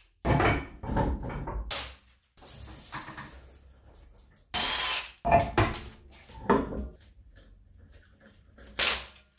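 A dog barking in short bursts, with stretches of hissing noise in between.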